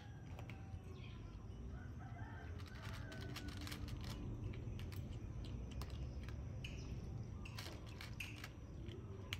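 A cat crunching dry kibble, a run of short irregular clicks, while chickens cluck and call in the background.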